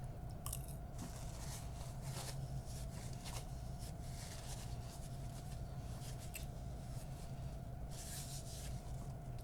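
A person chewing Reese's candy popcorn close to the microphone: irregular soft crunches and mouth noises over a steady low hum.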